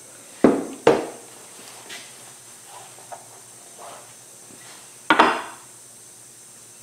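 Sharp knocks of tools being set down on a wooden workbench and against a hardwood cocobolo board. There are two knocks in the first second, faint small taps after that, and a quick, loud double knock about five seconds in.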